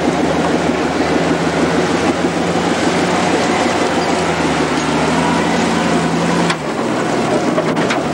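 Range Rover-based off-road trial car's engine running hard at steady revs as it crawls up a rock section, easing off about six and a half seconds in.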